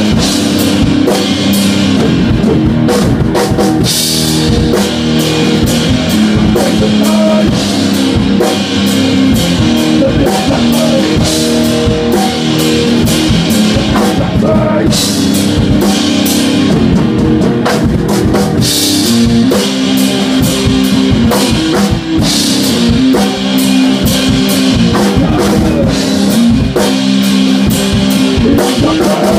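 Rock band playing loud and live: drum kit with cymbal crashes and electric guitar riffs, continuous throughout.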